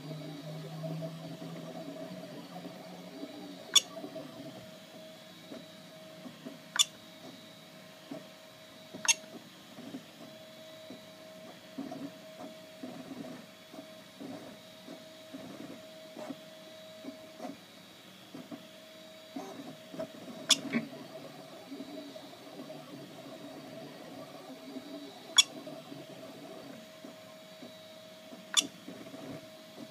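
Ultimaker 2 3D printer running mid-print, its stepper motors giving a steady whine over an uneven low buzz as the print head moves. Six sharp clicks come at irregular moments from the front-panel control knob being pressed to move through the menu.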